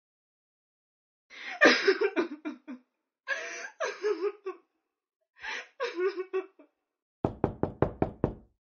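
A voice in three short bursts, each about a second long, followed near the end by rapid knocking on a door, about six knocks a second.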